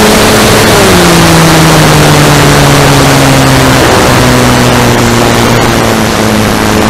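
An Aerobeez MXS-R RC plane in flight, heard from on board: its electric motor and propeller hum over loud wind rush. About a second in the hum drops in pitch as the motor slows, then holds steady at the lower pitch.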